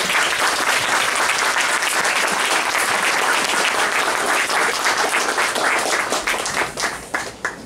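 Audience applauding: dense clapping that thins to a few scattered claps near the end.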